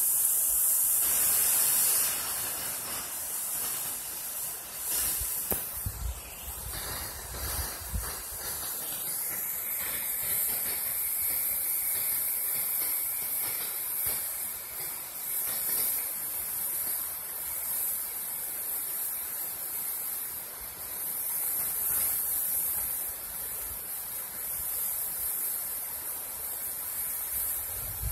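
Waterfall rushing: a steady hiss of falling water, a little louder for the first couple of seconds.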